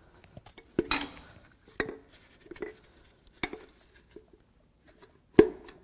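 Metal clinks and knocks as a connecting rod is worked off its crankshaft journal inside a Jeep 4.0L inline-six block. There are about half a dozen sharp, ringing strikes, the loudest near the end; the rod is stuck and won't come out easily.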